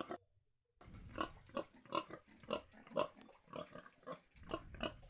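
Domestic pig grunting in short, regular grunts, about two a second, after a brief silent gap near the start.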